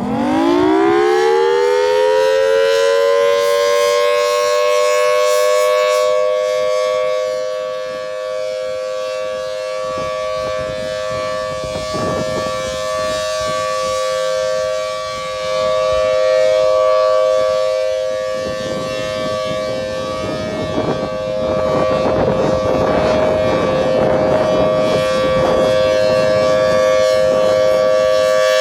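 Federal Signal Thunderbolt 1000T outdoor warning siren sounding its steady Alert signal. It winds up from a low pitch over the first couple of seconds to a steady two-note chord, which is held with its loudness fading and swelling slightly.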